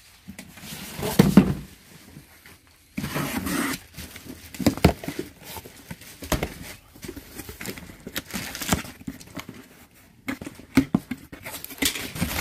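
A cardboard box being handled and opened: knocks and a heavy thump about a second in, a box cutter scraping through the packing tape, then cardboard flaps and paper packing rustling.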